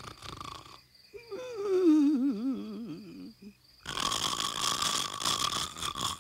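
Comic cartoon-style snoring from a puppet character: a wavering, whistling out-breath that falls in pitch, then a loud rasping in-breath about four seconds in.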